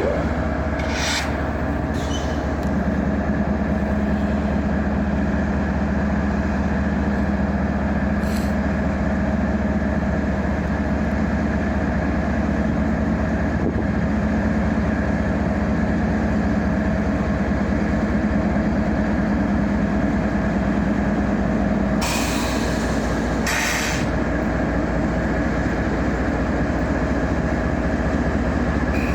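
Canadian Pacific train running with a steady low diesel rumble and hum. A low tone comes in about three seconds in and stops about 22 seconds in. There are a few short hisses, the longest about 22 seconds in.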